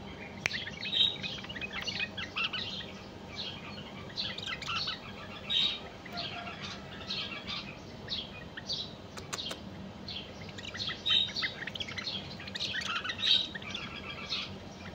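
A male and female white-eared bulbul chirping and singing in short, repeated phrases, louder about a second in and twice near the end.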